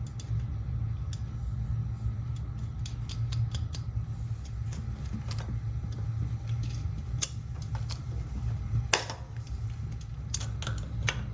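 Light metallic clicks and clinks of hand tools and fittings as a motorcycle carburettor is fitted, scattered and irregular, with the sharpest clink about nine seconds in, over a steady low hum.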